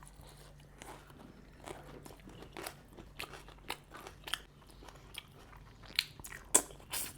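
Close-miked eating of seafood boil: chewing and crunching with many short sharp crackles, a few louder ones near the end.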